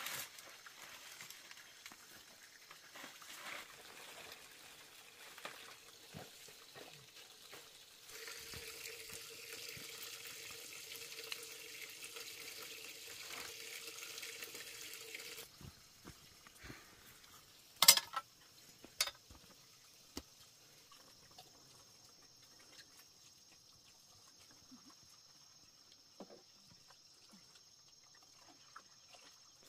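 Water running steadily for about seven seconds, starting and stopping abruptly, as from a tap turned on and off. A little after it stops come two sharp knocks about a second apart.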